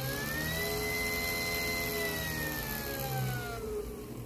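3D-printed dual-stator axial flux brushless DC motor whining as it runs: the pitch rises to a steady high whine about a second in, then falls from about halfway as the motor slows down.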